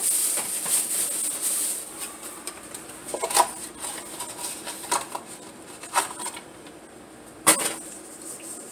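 Cardboard packaging of an LED light bulb being opened and handled: rustling for the first couple of seconds, then a few scattered sharp clicks and taps.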